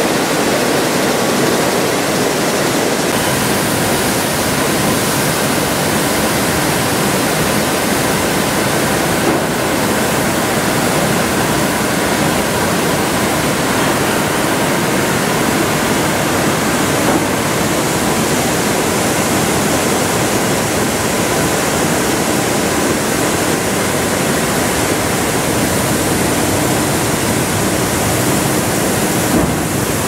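Grain-handling machinery in a grain store making a steady, loud rushing noise with a faint hum, as grain is conveyed and poured onto the piles.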